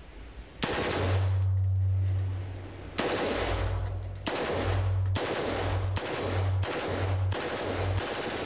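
AR-15 rifle converted to fully automatic firing in bursts: a first burst of about two seconds, then a string of shorter bursts coming every second or so. The shots echo in an indoor range.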